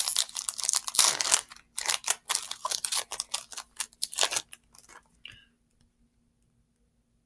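Foil trading-card booster pack wrapper crinkling and tearing as it is ripped open by hand, a dense crackle at first, then in scattered bursts that die away about five seconds in.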